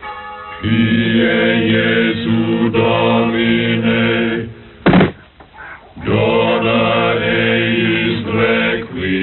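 Choir of voices singing long held chords, twice, with a brief sharp sound between them.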